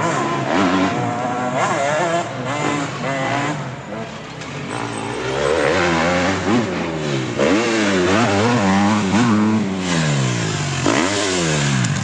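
Motorcycle engines revving, the pitch climbing and dropping again and again as they run up through the gears, with a sharp drop and climb near the end.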